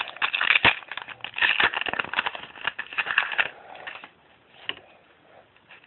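A trading-card pack's wrapper being torn open and crinkled: a dense run of crackles for about three and a half seconds, then only faint rustles.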